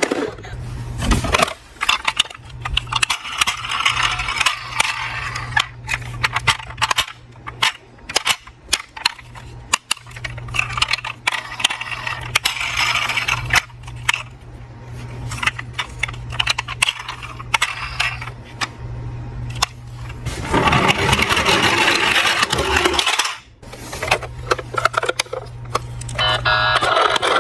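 Many sharp clicks and rattles of small toy cars being handled, over a steady low hum, with a few stretches of hissy noise.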